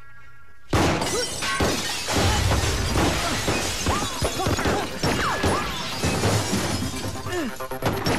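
Film action soundtrack: a held music note, then a sudden loud crash of shattering glass less than a second in. It is followed by a dense run of music mixed with repeated crashing and impact sound effects.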